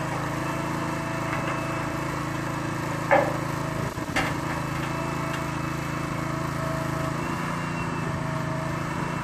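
The small engine of a self-propelled drive-over grain hopper runs steadily while the machine manoeuvres on its hydraulics, with a few tones that waver in pitch. Two sharp knocks come about three and four seconds in, the first the loudest.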